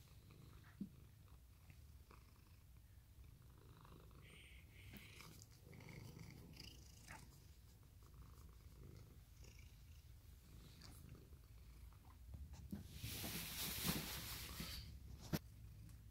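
Domestic cat purring quietly and steadily while being stroked on the head, a continuous low rumble. About two-thirds of the way through comes a couple of seconds of rustling, then a single sharp click.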